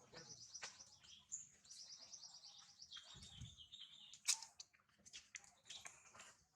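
Faint bird calls: high, rapid trills twice in the first couple of seconds, then a lower trill, with scattered sharp clicks and one louder snap about four seconds in.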